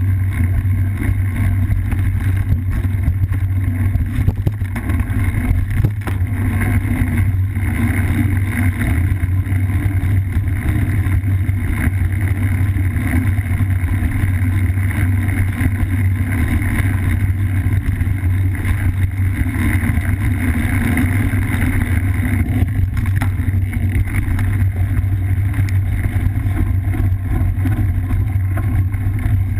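Steady low rumble of cyclocross tyres rolling over a dirt and gravel singletrack, with the bike's vibration carried into a GoPro clamped to the handlebar or saddle rails.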